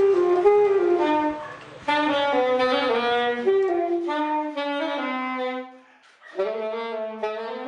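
A wind instrument playing a solo melody in short phrases that mostly step downward, with a brief break about six seconds in.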